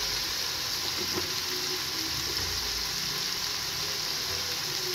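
Cubed chicken frying in oil in a metal pan, sizzling with a steady hiss.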